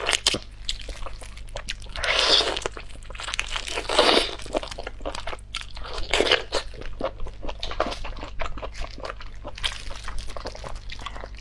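Close-miked crunching and cracking of whole cooked shrimp, shells and heads, being bitten into and chewed, heard as a rapid run of small crackles. A few louder bursts come at intervals of about two seconds.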